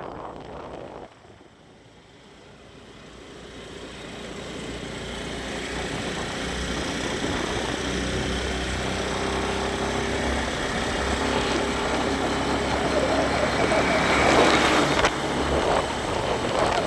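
A motor vehicle's engine and road noise, growing louder over several seconds and then running steadily.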